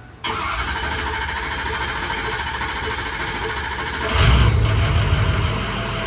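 Ford 6.0 L Powerstroke V8 diesel cranking steadily on the starter for about four seconds, then firing about four seconds in and running.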